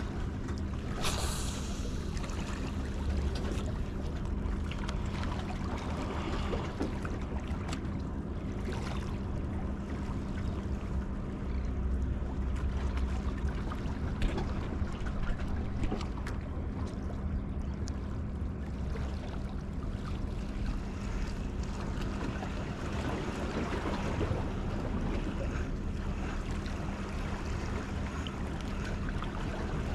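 Wind on the microphone and small waves washing against pier rocks, with a steady low hum underneath and a few light clicks.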